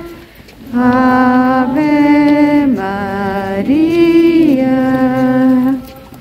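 Voices of a procession singing a slow hymn as one melody in long held notes, each about a second, stepping up and down in pitch; it begins after a short pause near the start.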